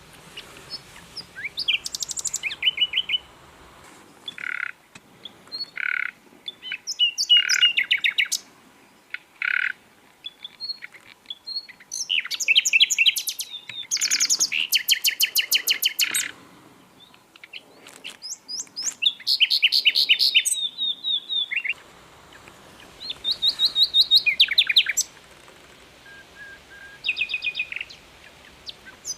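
Sikatan londo (grey-headed canary-flycatcher) singing: phrases of rapid, repeated high chirps and trills, each a second or two long, separated by short pauses.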